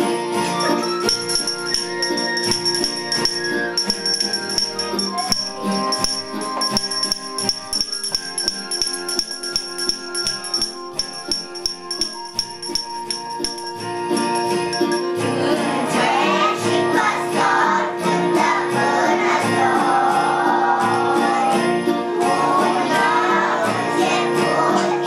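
A Romanian Christmas carol (colind) with jingle bells and a steady beat in the backing music; a group of young children's voices comes in singing about halfway through.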